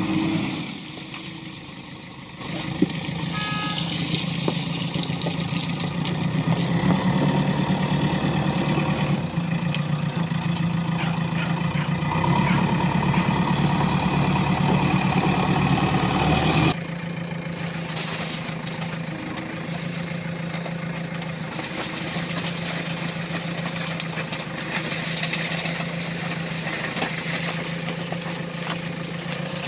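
Heavy diesel engine running under load, with one sharp knock about three seconds in. About seventeen seconds in it drops abruptly to a quieter, steadier idle.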